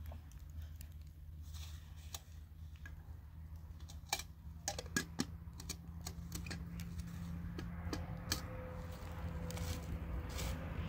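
Scattered light clicks and taps, most of them bunched about halfway through, over a steady low hum.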